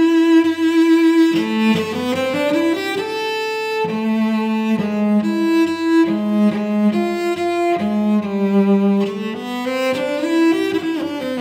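Unaccompanied cello, bowed, playing a melodic line of held notes with a few rising slides between them.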